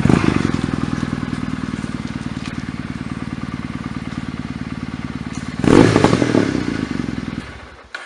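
Kawasaki W800's air-cooled 360-degree parallel-twin engine running close by, then idling with an even pulse. It is revved once about two-thirds of the way through, and the sound dies away near the end.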